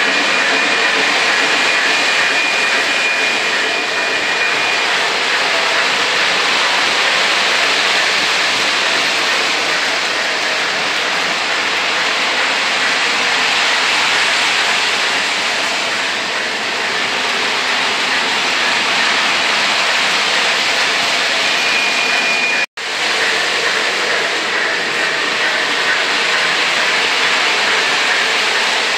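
O gauge model trains running on the layout: a steady, loud rushing rumble of the locomotives and cars rolling on three-rail track, with a thin high tone over the first few seconds and again just before the sound cuts out for an instant about two-thirds of the way in.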